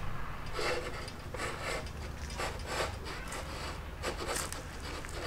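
Irregular scrapes and knocks of wood from men working on the bare timber rafters of a roof.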